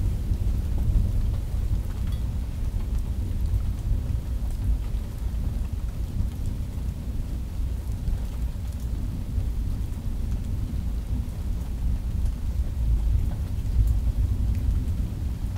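Thunderstorm: a steady low rumble of thunder under falling rain, with faint scattered drip ticks. The rumble swells a little about a second in and again near the end.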